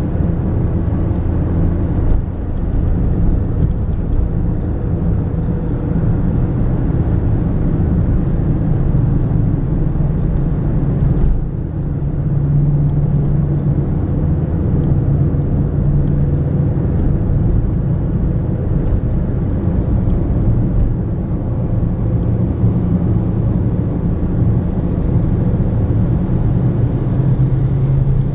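A car driving along: a steady low rumble of engine and road noise, with humming engine tones that shift in pitch and brief dips in level about two and eleven seconds in.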